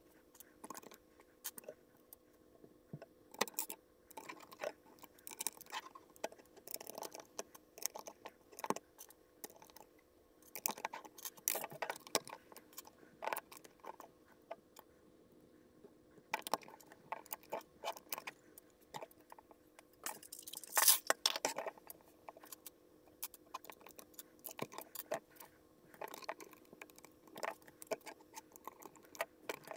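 Plastic LEGO bricks clicking and clattering as they are picked from a loose pile and fitted onto a baseplate, in irregular sharp clicks with a louder flurry of rattling about 21 seconds in. A faint steady hum lies underneath.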